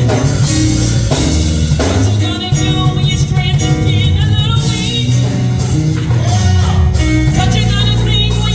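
Gospel music: singing with wavering, held notes over a band with bass and drums.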